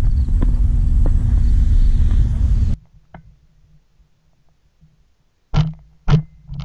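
A loud, steady low rumble that cuts off abruptly about three seconds in. Near the end come two sharp bangs about half a second apart.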